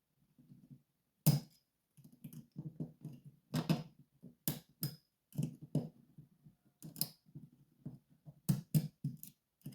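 Irregular sharp metallic clicks and taps, about a dozen, from handling a Rosengrens disc-detainer lock and its small parts on a bench as it is taken apart.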